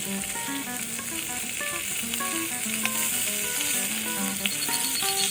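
Food frying with a steady sizzle, over background music with a simple melody.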